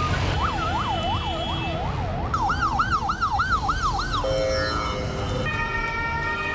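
Ambulance siren wailing up and down, with slow sweeps at first and then faster ones, about three a second. It cuts off suddenly about four seconds in, and steady tones follow.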